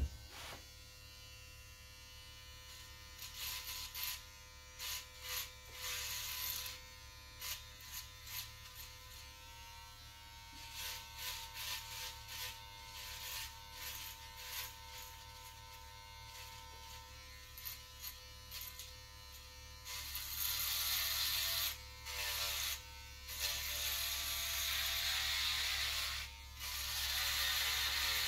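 Electric hair trimmer running with a steady buzz, growing louder and harsher in passes as the blade cuts against the scalp. The passes are short and broken at first, then long and nearly continuous near the end.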